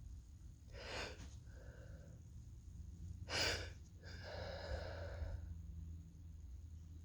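A person with a cold breathing hard and unevenly as a sneeze builds: a short sharp breath about a second in, a louder, sharper one about three and a half seconds in, then a longer breath lasting over a second.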